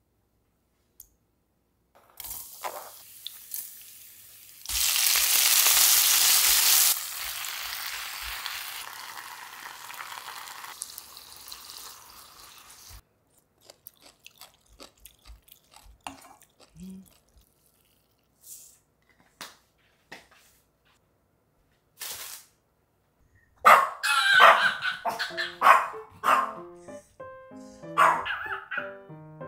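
Food sizzling in a hot frying pan, loudest for about two seconds soon after it starts, then a wooden spatula clicking against the pan as greens are stir-fried. Near the end a Pomeranian barks several times in quick succession over background music.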